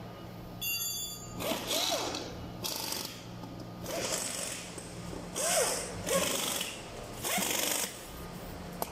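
Workshop assembly noise: about five bursts of hissing, rasping mechanical noise, each a second or so long, over a steady electrical hum, with a brief high-pitched beep about a second in.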